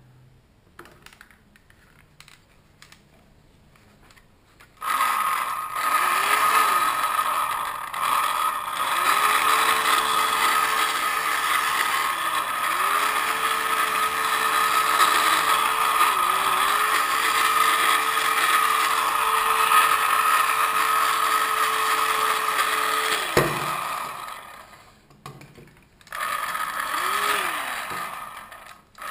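The toy yacht game's hand-held blower fan whirring, its pitch rising and falling every few seconds as the speed changes. It starts about five seconds in after some light handling clicks, stops near a sharp knock later on, and starts up again shortly after.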